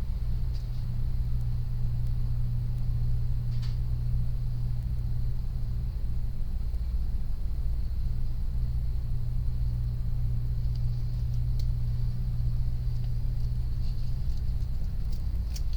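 Steady low machine hum that does not change, with a few faint clicks.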